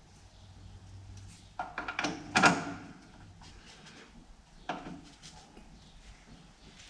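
Metal tool clanking and scraping against a seized fitting under a Massey Ferguson 35X engine as it is worked loose: a quick run of knocks about two seconds in, the loudest just after, and a single knock near five seconds.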